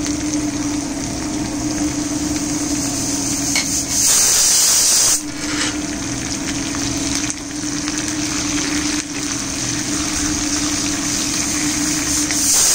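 Garlic, green chillies and cumin frying in hot oil for a tadka, sizzling steadily as a steel ladle stirs. About four seconds in, a louder, brighter sizzle lasting about a second as curry leaves go into the oil, and another loud burst near the end. A steady low hum runs underneath.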